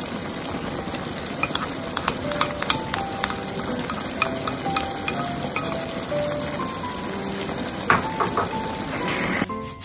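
Food sizzling steadily in hot oil in a frying pan, with scattered clicks of stirring.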